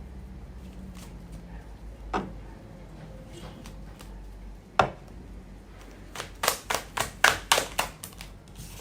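Tarot cards being handled and laid on a table: two single sharp taps, then a quick run of about eight snapping taps over a second and a half near the end.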